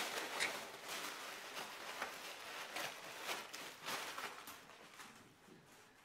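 Black plastic bags crinkling and rustling as they are picked up and handled, in irregular crackles that die away near the end.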